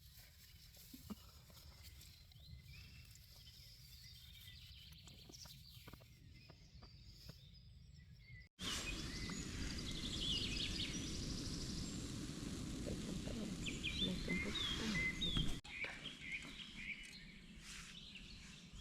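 Birds chirping and calling over a steady rushing background, cut together from three stretches. The middle one, starting a little before halfway, is louder, with denser bird calls and a stronger rumble.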